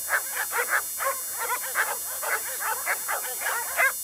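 Several Doberman pinschers barking and yipping in quick succession, several short calls a second, with a louder bark near the end.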